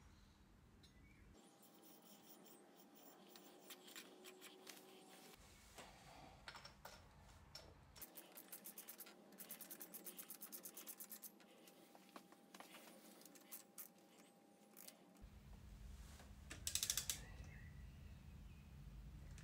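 Faint clicking and rubbing from a socket wrench on an extension at the top bolt of a FRAM oil filter housing, with a run of quick even ratchet clicks about halfway through and a short louder rattle near the end.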